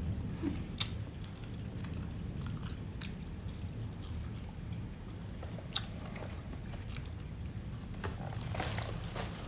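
Close mouth sounds of someone eating fried chicken and rice: chewing and biting with scattered short wet clicks, a cluster of them near the end, over a steady low rumble.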